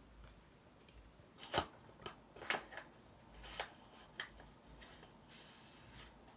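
Quiet rustling of paper and card with several sharp clicks and taps as a small package is handled and opened by hand. The loudest tap comes about a second and a half in, and a longer rustle follows near the end.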